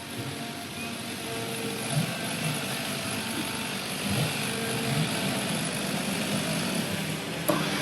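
Chainsaws running steadily, a continuous engine buzz.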